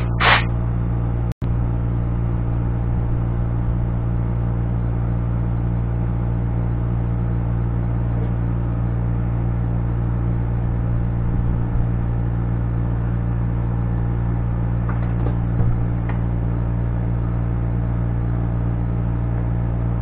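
A steady low electrical or machine hum with even overtones, cutting out for an instant about a second in, with a few faint taps and clicks of handling later on.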